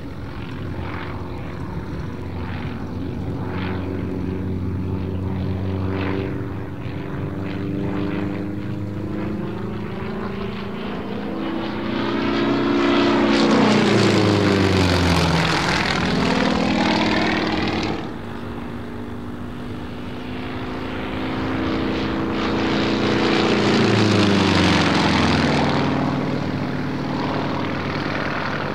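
A Yak-52's nine-cylinder M-14P radial engine and propeller, running throughout an aerobatic display. The engine note swells twice as the plane passes, and its pitch falls each time it goes by. The sound drops off abruptly once, about two-thirds of the way through.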